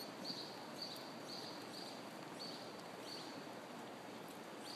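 Tennessee Walking Horse walking on soft arena dirt: faint steady background noise with a light, high jingle about twice a second, in step with its stride.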